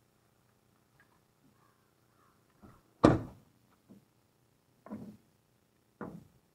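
A pickup truck's rear door shutting with one loud thump about three seconds in, among a few quieter knocks and rustles of climbing gear being handled.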